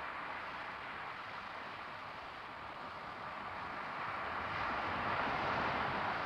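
Steady hiss of background noise with no distinct events, growing a little louder about four and a half seconds in.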